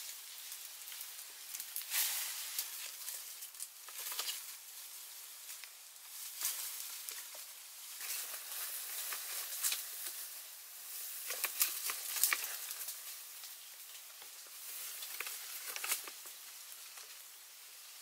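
Irregular rustling and crackling of leaves and twigs, with many short sharp snaps scattered through, as a man climbs a slender tree trunk into the canopy.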